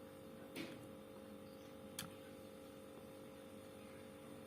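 Faint steady hum of a running Sharp two-door refrigerator's compressor, with a brief rustle about half a second in and a sharp click about two seconds in.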